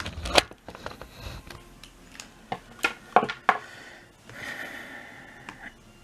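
Handling noise: a string of light clicks and knocks as a plastic laptop power adapter brick is picked up, moved about and set down, with the camera being handled, followed by a fainter steady sound about four seconds in.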